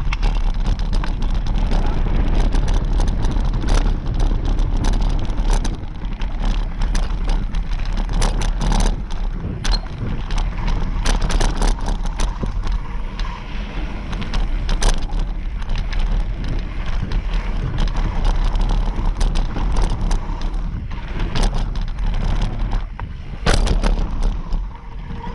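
Mountain bike descending a dirt trail at speed: wind buffeting the camera microphone and tyres rolling over packed dirt, with frequent sharp knocks and rattles from the bike over bumps and jumps.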